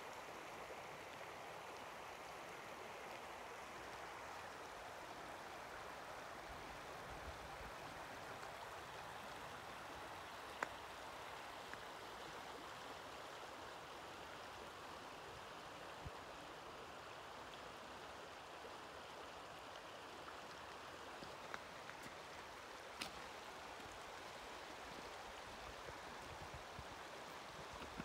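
Shallow river water running over a bed of rounded cobbles, a steady, gentle rippling babble. A few faint clicks stand out against it, about a third of the way in and again past three quarters.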